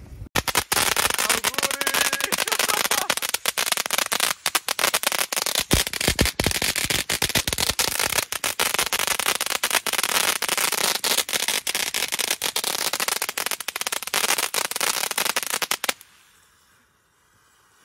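Ground fountain fireworks spraying sparks with a dense, rapid crackling and a few heavier pops about midway. The crackling cuts off suddenly near the end.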